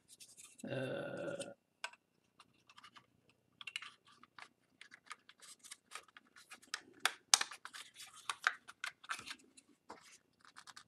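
Plastic and resin 1/24 scale-model car parts clicking, tapping and scraping against each other as they are handled and test-fitted together. The clicks are light and irregular, and come thicker and louder in the second half.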